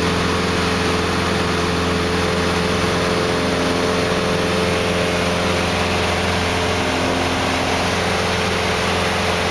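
Steady drone of a light aircraft's engine and propeller heard inside the cabin in cruise, a low even hum with a rush of air over it.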